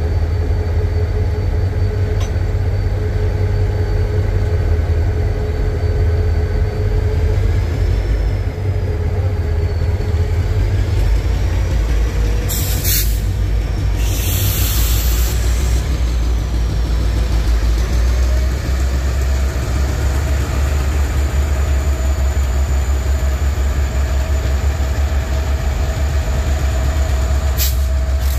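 Reading & Northern freight train rolling by close at hand: a loud, steady low rumble of locomotive and cars on the rails. Two short bursts of hiss come about halfway through.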